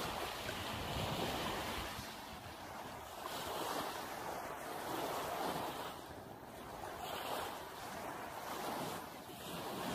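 Small waves washing up onto a sandy shore, the wash swelling and easing every few seconds, with some wind on the microphone.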